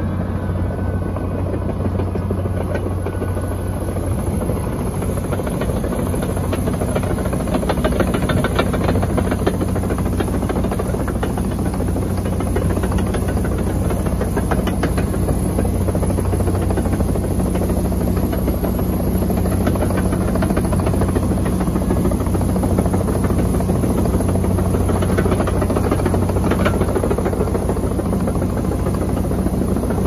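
Komatsu D85EX bulldozer's diesel engine running steadily at working load, with scattered clanks from the tracks and blade.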